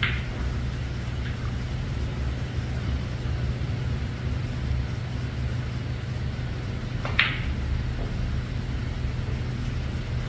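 A steady low hum throughout, with a sharp click about seven seconds in as the cue strikes the snooker cue ball, and a fainter knock about a second later.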